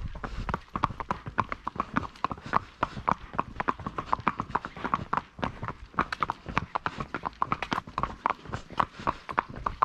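Horses' hooves clip-clopping: a steady, uneven run of sharp hoof strikes, several a second.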